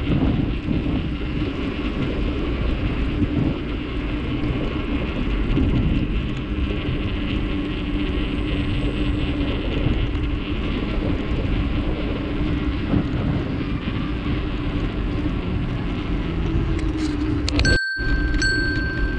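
Steady wind noise on a camera microphone with road rumble while riding a bicycle. Near the end the sound cuts out for an instant, then a steady high ringing tone comes in.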